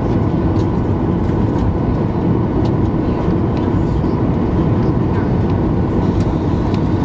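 Steady cabin rumble inside a Boeing 737-900ER taxiing on the ground, its CFM56 engines at idle carrying a faint steady whine, with scattered light clicks and rattles.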